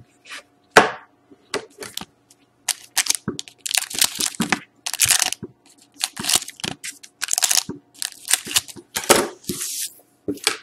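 Foil trading-card packs being snipped open with scissors and handled, a run of short, irregular crinkling and crackling rustles of the wrappers, with a sharp tap about a second in.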